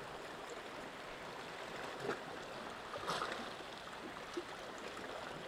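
Calm sea washing gently against the rocks: a steady soft water wash, with a few faint clicks.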